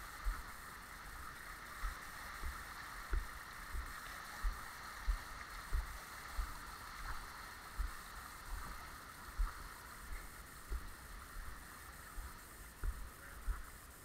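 Footsteps walking down earthen steps, thudding on the body-worn camera about every two-thirds of a second, over a steady high hiss in the background.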